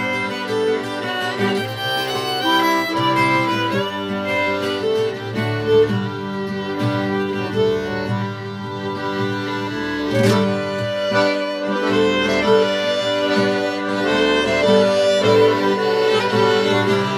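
Folk band playing a slow Irish-style reel with violin, accordion, saxophone and acoustic guitar, the violin carrying the melody over held accordion chords.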